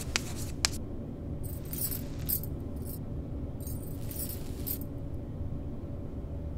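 Hairbrush pulled through long hair in two sets of about three quick strokes, each a short bright swish, with metal bangles jingling on the brushing wrist. A low steady hum lies underneath.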